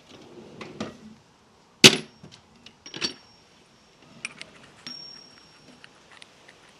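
Metal hand tools being handled and set down, clinking and clanking. The loudest clank comes about two seconds in and another about a second later, and a couple of them leave a brief high ringing note.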